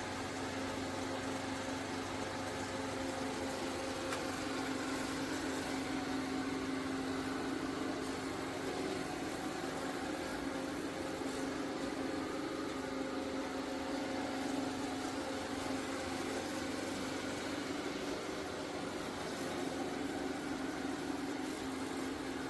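ECOVACS DEEBOT T80 Omni robot vacuum-mop running: a steady motor hum over an even whir.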